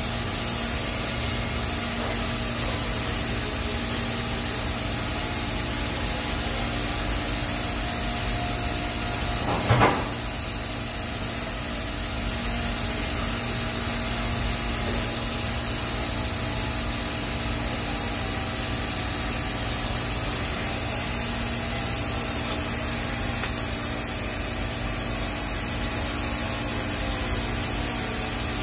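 Steady hiss of a TIG welding arc running a root pass on stainless steel pipe, with a faint steady hum underneath. A brief louder sound with a short rising and falling whine comes about ten seconds in.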